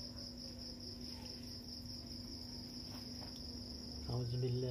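Crickets chirping in a steady, evenly pulsing high trill, with a steady low hum beneath. A man's voice starts near the end.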